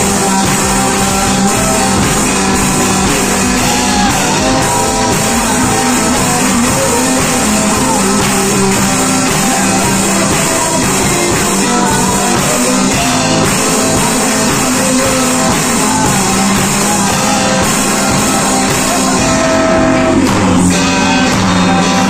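A small live rock band playing loudly: electric bass, electric guitars and a drum kit.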